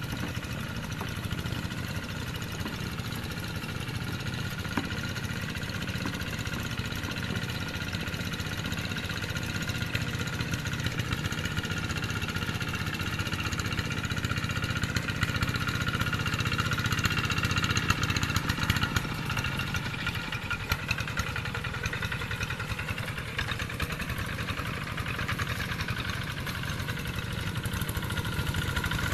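Engine of a two-wheel hand tractor running steadily under load as it ploughs the field. Its note shifts slightly about two-thirds of the way through.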